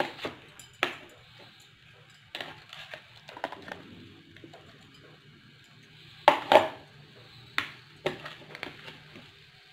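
A cooking utensil knocking and scraping against a nonstick frying pan as pieces of liver are moved about in the oil: a scattering of separate clacks, the loudest a close pair about two-thirds of the way through.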